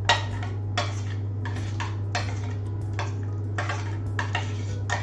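Plates and cutlery being handled on a kitchen counter: a string of sharp clinks and knocks, two or three a second, over a steady low hum.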